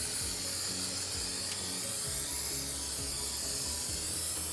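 Rust converter being sprayed from a can onto a bus's rusty steel floor: a steady, continuous hiss of spray, with faint background music under it.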